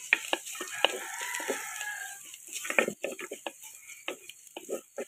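Wooden spoon knocking and scraping against an earthenware pot as chopped onion and turmeric are stirred, in a run of short sharp knocks. A rooster crows once in the background, about a second in.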